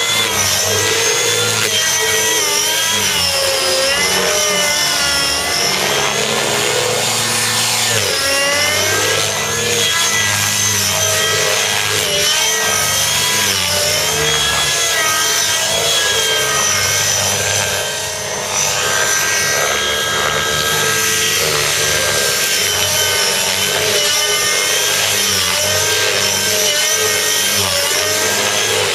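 Gaui NX4 RC helicopter with a Gaui 37SZH glow (nitro) engine and muffler, running hard with its rotor blades under load through aerobatic manoeuvres. Its pitch wavers and swoops up and down, with a brief dip in loudness about two-thirds of the way in.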